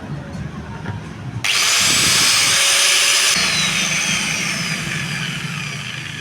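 Angle grinder switched on about a second and a half in, running at full speed for about two seconds, then switched off and winding down with a falling whine. A low rumble comes before it starts.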